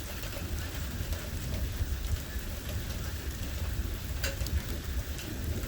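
Thunderstorm rain falling steadily, with scattered sharp taps of drops striking a hard surface and a low rumble underneath; one louder tap comes about four seconds in.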